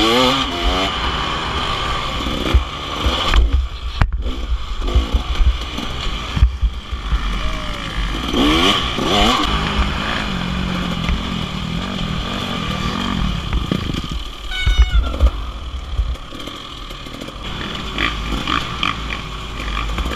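Dirt bike engine running under load on a trail ride, revving up and down with the pitch climbing sharply at the start and again about eight seconds in. A steady low rumble and scattered knocks run underneath.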